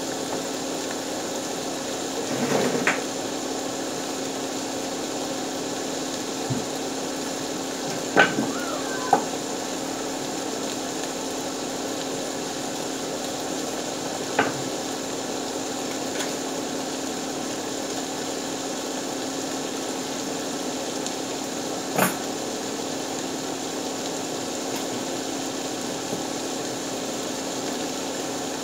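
Round scad sizzling steadily in a frying pan, with a low constant hum underneath. A few sharp clinks and knocks of kitchen utensils and dishes break in, the loudest about eight and nine seconds in.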